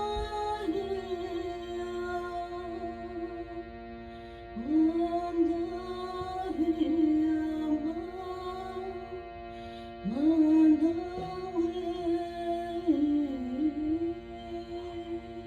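Wordless chant-like singing over a steady drone of many sustained tones. The voice holds a long note at the start, then begins two more phrases, about four and a half and ten seconds in, each sliding up into a held tone.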